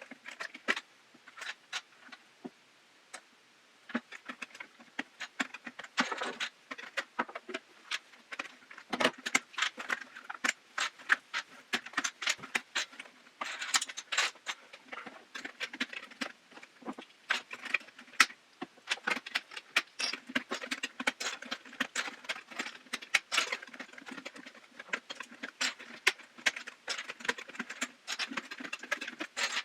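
Plastic keycaps being pried off a KeyTronic E3601 keyboard with a butter knife: a run of small plastic clicks and clatters, sparse for the first few seconds, then quick and nearly continuous.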